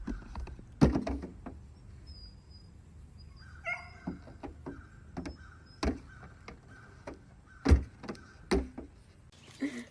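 A dog giving a short yip among several dull thumps and knocks.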